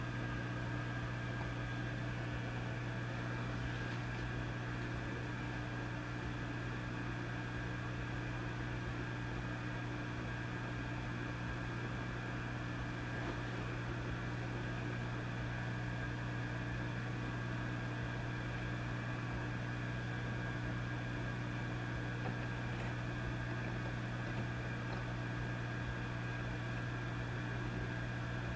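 Vintage tube amplifier idling with a steady low electrical hum and a layer of hiss, unchanging throughout.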